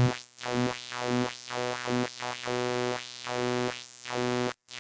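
A Vanguard software synthesizer lead patch holding one low sustained note through a resonant filter, its tone repeatedly swelling brighter and dulling again in uneven wah-like sweeps, cutting out briefly near the end.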